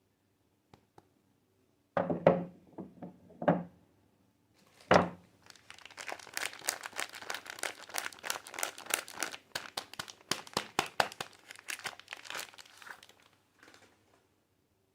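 Soap packaging being handled: a few thuds as the soap box or bar is knocked down, then the wrapper crinkling and tearing for several seconds as the soap is unwrapped.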